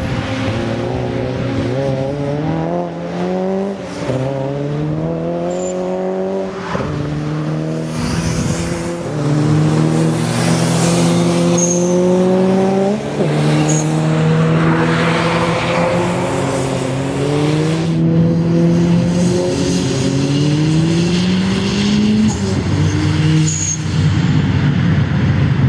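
Subaru Justy AWD hatchback's engine driven hard on a circuit: its note climbs again and again, dropping back between climbs as the driver shifts or lifts for the corners. A few seconds of tyre noise on the wet track come in the middle.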